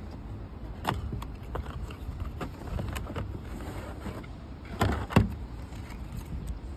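Cardboard packaging being handled and opened: a box lid lifted off, the inner tray handled and things tapped down on a table, with a few sharp knocks. The loudest knocks are a pair about five seconds in, over a low steady rumble.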